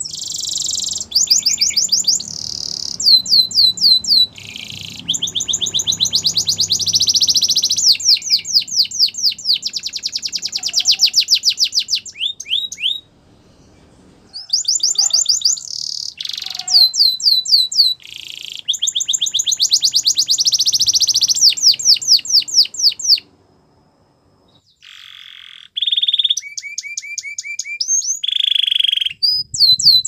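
Domestic canary singing: long phrases of rapid, high trills of repeated notes, broken by two short pauses.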